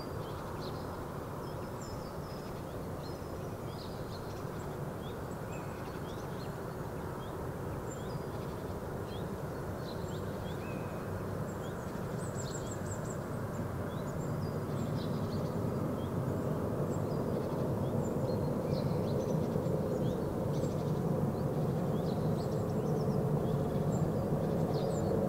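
Distant jet airliner taking off, a low rumble that grows steadily louder as it rolls and climbs out. Small birds chirp throughout.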